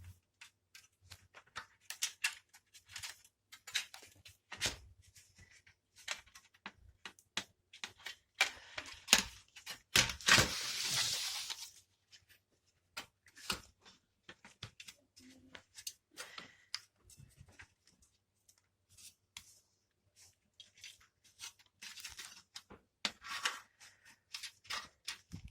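Scattered clicks, taps and scrapes of hands working on small hard parts, with a louder rasping noise about ten seconds in that lasts about two seconds.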